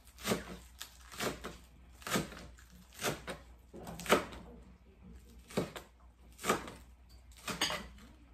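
Kitchen knife slicing green onions on a plastic cutting board: about eight separate chops, roughly one a second.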